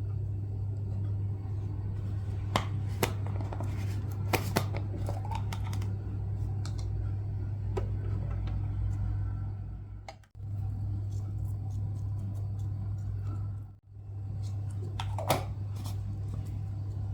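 Steady low hum, like a motor or appliance running, with a few light clicks and knocks over it. The hum breaks off briefly twice.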